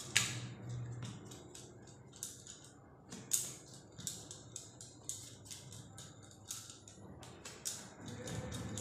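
Quiet, irregular clicks and taps, a few a second, as hands pat and press a stuffed aloo-tamatar paratha flat on a granite countertop.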